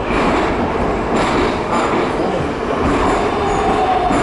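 Metro train running through the tunnel, heard from inside the car: a loud, steady rumble and rush of wheels and running gear, with a thin whine that falls slightly in pitch near the end.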